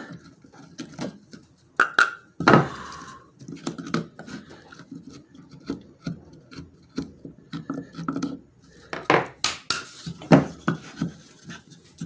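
Wooden parts handled on a workbench: irregular taps, knocks and short scrapes of wood on wood as a round wooden post is fitted into a glued hole in a board. The sharpest knocks come about two and a half seconds in and again around nine to ten seconds in.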